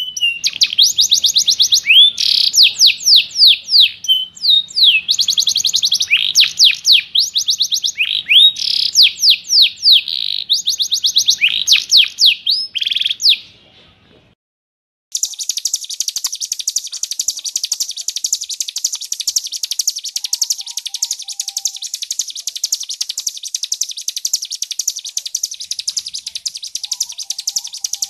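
Songbird song: for about thirteen seconds, quick bursts of repeated down-sweeping whistled notes; then, after a pause of about a second, a different bird's dense, very fast, high chattering trill running on without a break.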